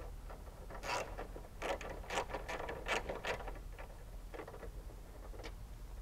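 Ratcheting socket wrench with a 10 mm socket loosening a bolt: a series of short clicks about half a second apart, stopping about three and a half seconds in, with a couple of fainter clicks later.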